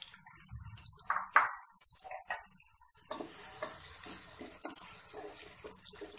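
Sliced onions frying in hot oil in a pot, a light sizzle that grows to a steady hiss about three seconds in as a wooden spoon starts stirring them. A brief clatter about a second and a half in, the loudest sound.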